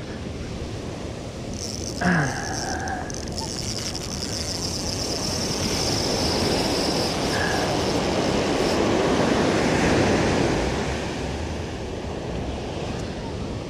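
Surf surging onto a rocky shore, building to a peak about ten seconds in and then easing off, with a high steady buzz over it for several seconds in the middle.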